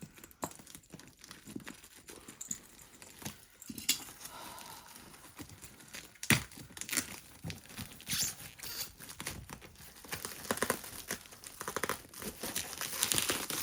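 Tape and plastic wrapping on a tightly packed parcel being torn and crinkled, in irregular crackling, tearing bursts, with a sharper crack about six seconds in and a quick run of crackles near the end.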